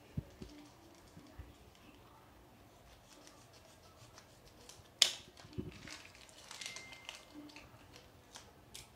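A small parcel being opened by hand: faint, scattered clicks and rustling of packaging, with one sharp snap about five seconds in followed by a few seconds of light rustling.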